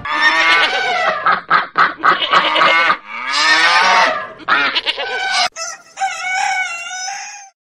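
A quick run of farm-animal calls one after another, with bleating and honking, then a rooster crowing near the end. A sharp click comes just before the crow.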